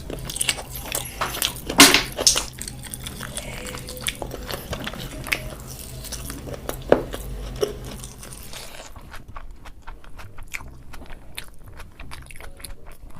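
Close-miked eating of biryani: wet chewing and biting with many sharp smacks and crunchy clicks, over a low steady hum that stops about nine seconds in.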